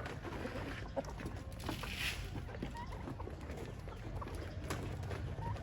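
Chickens clucking and calling in short scattered bursts over a steady low rumble.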